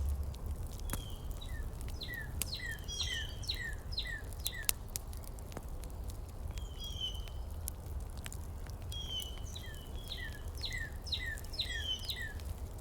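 A songbird singing two bursts of quick, repeated downward-sliding chirps, about two seconds in and again near nine seconds, over a steady low rumble with scattered sharp clicks.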